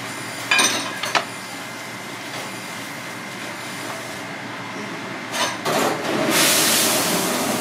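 A kitchen knife striking a cutting board twice while slicing raw abalone, over steady background kitchen noise. Near the end a loud, steady rushing hiss begins.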